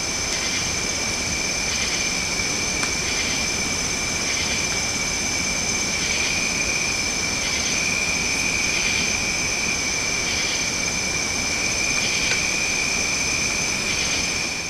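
Night insect chorus: a steady high-pitched drone in a few even tones over a constant hiss, with a fainter pulsing call repeating about once a second, and a couple of faint ticks.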